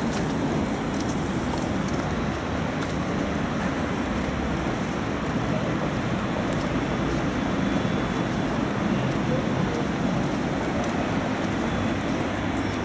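Steady outdoor city ambience: road traffic noise with faint voices of passers-by.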